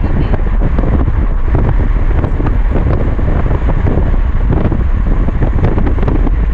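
Wind buffeting the microphone over the steady road noise of a moving car.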